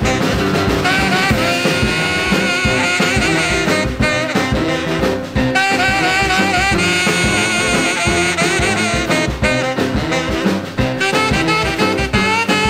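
Background swing-jazz music with brass and saxophone over a steady beat.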